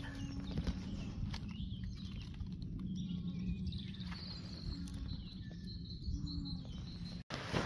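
Outdoor ambience: a steady low rumble with a faint hum, and faint bird chirps now and then. The sound drops out for an instant near the end.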